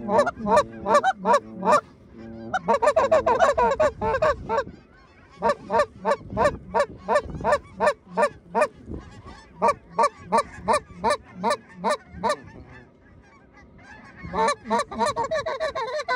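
Geese honking in fast, evenly spaced runs of about four honks a second, broken by short pauses, with a longer lull about three-quarters of the way through.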